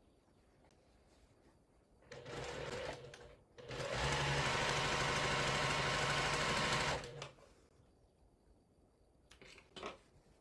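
Sewing machine stitching a seam: a short burst about two seconds in, then after a brief pause a steady run at speed for about three seconds that stops abruptly.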